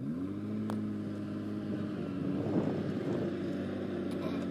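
Truck-mounted borewell drilling rig's diesel engine revving up at the start and then running steadily as the rig drives.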